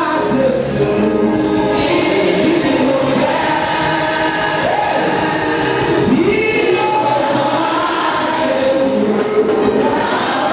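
Choir singing gospel music, with long held notes.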